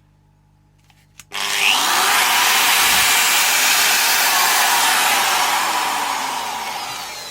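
Ryobi corded angle grinder switched on with a click about a second in, spinning up at once to a loud, steady whir as it runs with no load, then starting to wind down and fade near the end as it is switched off. The motor runs, so the secondhand grinder works.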